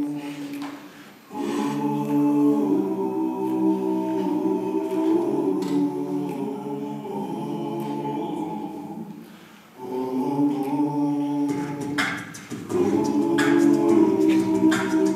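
Male a cappella group singing held chords in close harmony, in phrases broken by short pauses. Near the end a deeper bass part and sharp percussive clicks join in.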